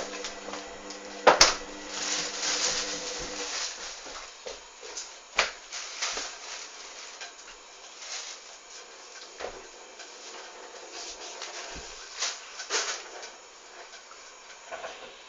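Hoover Dynamic washing machine in its main wash: the drum motor hums as the drum turns, then stops about three and a half seconds in. Through the pause, wet, sudsy laundry and water slosh and settle with scattered clicks and knocks.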